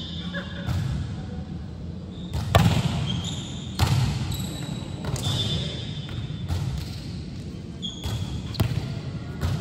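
Volleyball being struck and bouncing on a hard court during play: a series of sharp smacks roughly a second apart, the loudest two about a third of the way in. A few short high squeaks are heard between them over a steady low hubbub.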